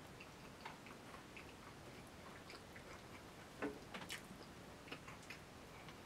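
Faint eating sounds: a fork clicking against a plate now and then, with two louder clicks around the middle.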